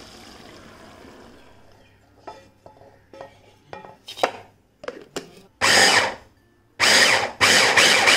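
Electric mini chopper pulsed three times about halfway through, the last pulse the longest, coarsely crushing a dry grated-coconut and spice mix without water. A few light clicks and knocks come first as the bowl and lid are handled.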